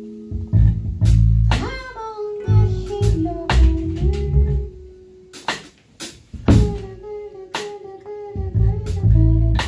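Live band music: plucked guitar notes over drum hits.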